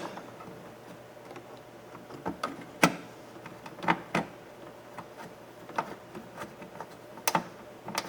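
A few separate sharp metallic clicks and light knocks, spaced a second or more apart, as a 10mm bolt is fitted with a socket and ratchet on the door handle mount.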